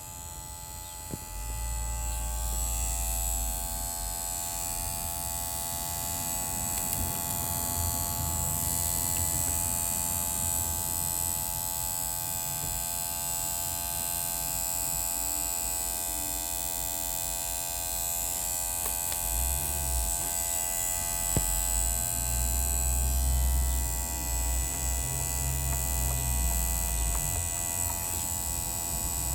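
Steady buzzing hum from a 2009 Volvo V50 1.6, made of several steady tones held at an even pitch throughout. Low rumbles come and go beneath it, strongest in the second half.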